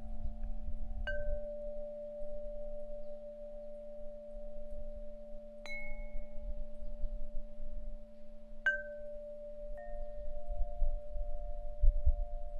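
Metal chimes ringing: several steady held tones sound throughout, and four brief, higher single strikes come about one, six, nine and ten seconds in. A faint low rumble runs underneath.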